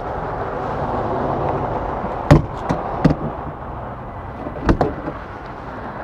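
Steady outdoor background rumble with three sharp knocks, about two, three and four and a half seconds in.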